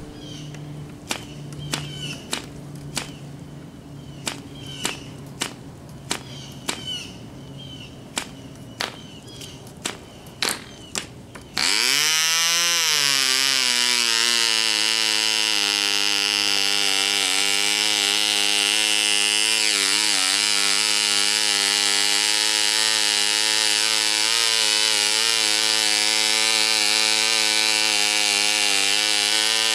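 P.A.W. 149 model diesel (compression-ignition) engine being started by hand-flipping the propeller: a sharp click with each flip, repeated about every half second, until it catches about 12 seconds in. It then runs with a loud, high-pitched buzz that climbs in pitch as it picks up speed and settles into a steady run, its speed wavering slightly.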